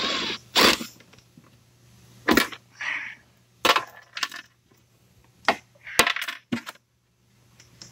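Irregular sharp clicks and clacks, about eight of them, from rubber inserts and plastic fasteners being worked out of an ATV's plastic body panel with a cordless drill-driver.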